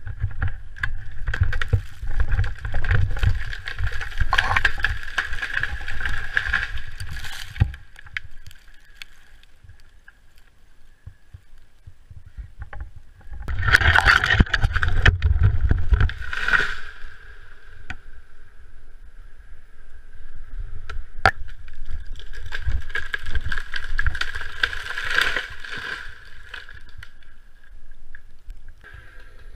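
Chainsaw running in a felling cut, revving up loud in three long stretches and easing back in between, with low rumble from wind on the microphone during the loud parts.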